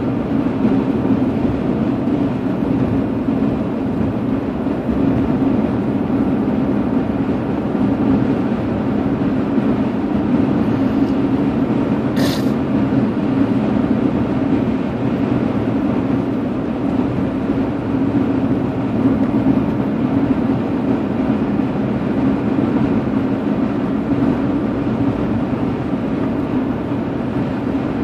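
Steady road and engine noise heard inside a moving car's cabin, with one brief click about twelve seconds in.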